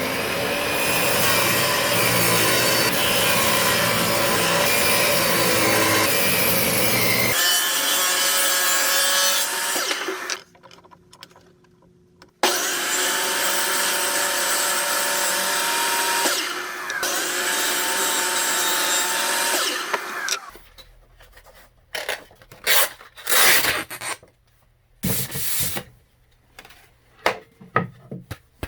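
Power saw running and cutting wood in two long runs, the first ending about a third of the way in and the second starting shortly after and stopping about two-thirds in. After that come a series of short wooden knocks and clatters as pieces are handled.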